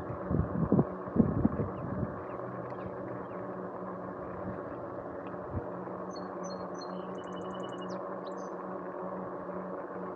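Rad Rover electric fat-tire bike riding along the road: a steady hum with wind and road noise on the lapel mic, uneven for the first couple of seconds. A few short bird chirps come about six to eight seconds in.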